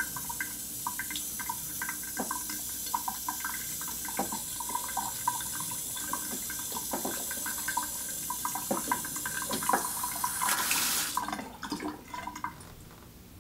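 Kitchen faucet running in a thin stream, splashing into the sink, shut off about eleven seconds in. After that it goes quiet with no further dripping, a sign that the new valve seat and spring have stopped the leak.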